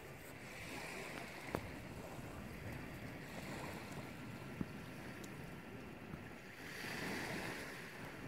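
Small waves washing steadily on a rocky, sandy shore, swelling a little near the end. Two sharp clicks stand out, about a second and a half in and again about three seconds later.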